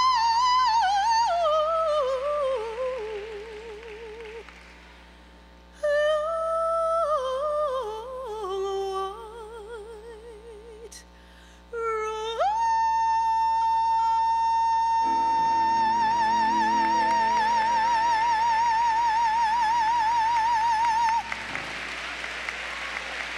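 A solo female soprano voice singing slow descending phrases with a wide vibrato, with two short pauses, then gliding up to a long high note held for about nine seconds. Applause breaks out as the note ends, near the end.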